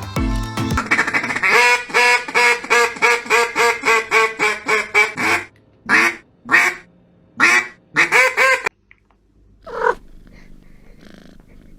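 An animal calling in a fast run of short, evenly repeated calls, about three a second. Then come a few more spaced-out calls, and a last single call near the end.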